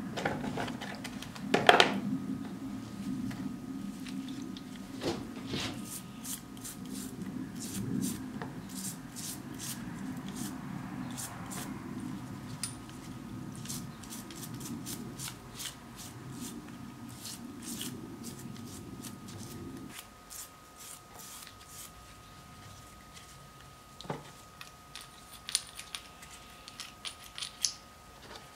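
Small brush scrubbing and scraping a greasy metal clicker (ratchet) hub in a tub of gasoline, with many sharp clicks and scrapes of metal and bristles. A low steady hum in the background cuts off about two-thirds of the way through.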